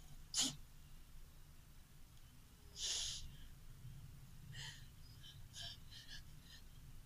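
Horror-film soundtrack playing quietly through a TV's speakers: a few short breathy sounds, the loudest about half a second and three seconds in, with fainter ones following.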